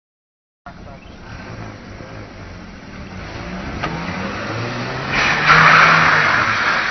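Small hatchback car's engine revving and climbing in pitch as the car spins tight circles on a wet street, with a loud rush of tyre noise about five seconds in. The sound starts after a half-second gap.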